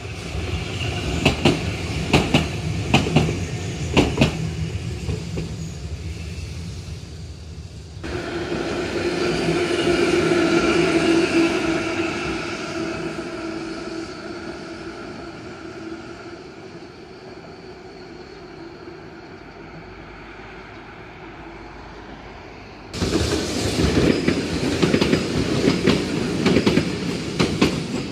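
Two-car Randen trams with Mobo 501-series cars running coupled: wheels clacking over rail joints as one pair passes, then a steady humming tone from a pair on street track that swells and slowly fades, then louder rumble and clatter as another pair rolls in near the end.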